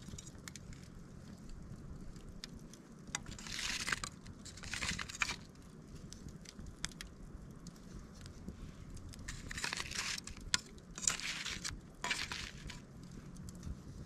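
Wood campfire crackling: scattered sharp pops, with several short bursts of denser crackle about four, five, ten, eleven and twelve seconds in.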